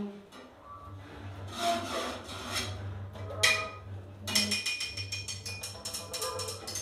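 Free-improvised trio of saxophone, bowed double bass and drums playing extended scraping and rubbing textures over a low steady drone. About three and a half seconds in there is a sharp hit, and soon after a rapid patter of small clicks and taps on the drum kit.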